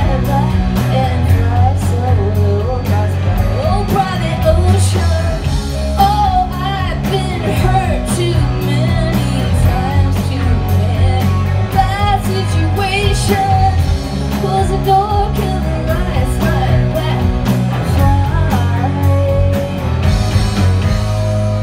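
Live rock band playing: a woman singing lead over electric guitar, bass and drums, heard from within the audience.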